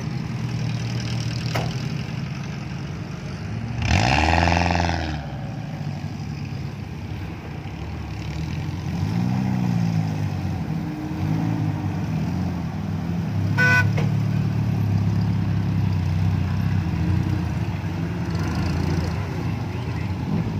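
Suzuki Jimny 4x4 engines running in low gear while crawling through brush, with revs rising and falling. A hard rev surges about four seconds in and more revving follows around the middle. A short horn toot sounds just past the middle.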